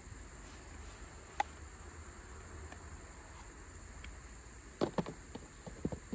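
Steady high-pitched insect drone, with a few short knocks and scrapes of a cardboard phone box being handled: one click early on, then a cluster of louder taps near the end as the inner box comes out of its sleeve.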